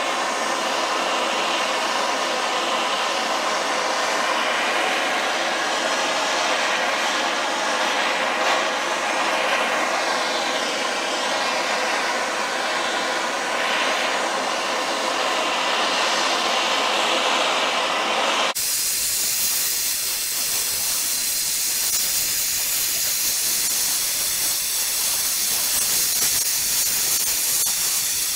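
MAPP gas hand torch burning with a steady hiss, its flame played over a cast-iron engine block. About two-thirds of the way through, the hiss abruptly turns thinner and higher.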